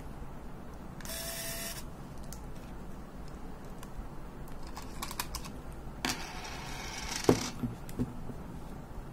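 Handling noise from the Olympus AZ-230 Superzoom's battery compartment: two short scrapes of a coin working the plastic battery-holder latch, then a few sharp clicks as the battery holder comes out.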